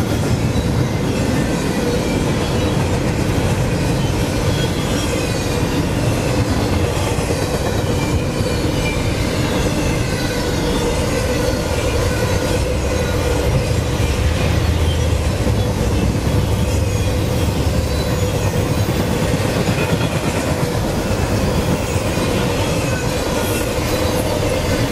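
CSX intermodal freight train's double-stack well cars and trailer flatcars rolling past: a steady, loud rumble of steel wheels on the rails, with a thin steady tone running through it.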